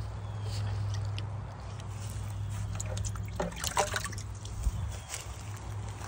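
Liquid trickling and splashing into pond water, with a few short sharp splashes and clicks past the middle. A steady low hum runs underneath.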